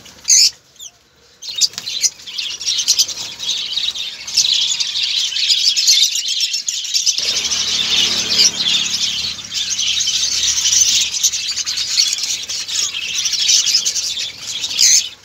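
A large flock of caged lovebirds chattering: a dense, continuous mass of high-pitched overlapping chirps, with a short louder burst about half a second in.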